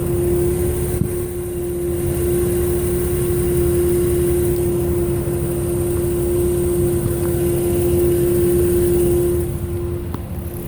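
Toyota 1MZ-FE V6 engine running with a loud, steady hum of one constant pitch over the engine noise, easing slightly near the end. The hum came from a failing alternator: it stopped when the alternator died and was gone after the alternator and belts were replaced.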